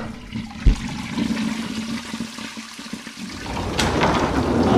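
Toilet flushing: a rush of water that swells louder about three and a half seconds in, with a short low thud shortly after the start.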